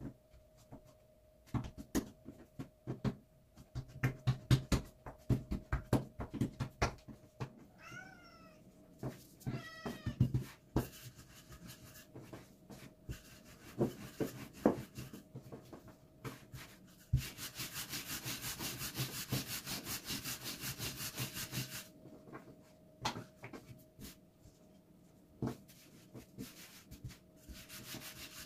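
Irregular knocks and taps of hand work, with two short pitched calls that bend in pitch about a third of the way in. About two thirds in comes about five seconds of fast, even scratching or rubbing, and a faint steady hum runs underneath.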